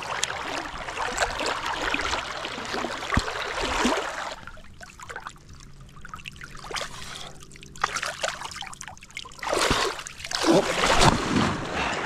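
Shallow creek water trickling and sloshing as a person wades through it. The sloshing is steady for the first few seconds, quieter in the middle, and louder again near the end.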